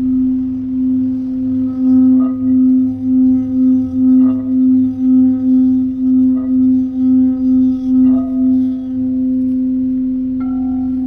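Crystal singing bowls sounding under a mallet: one deep steady tone pulses about twice a second, with a few soft strikes about every two seconds adding higher ringing tones. Near the end a higher-pitched bowl starts to ring.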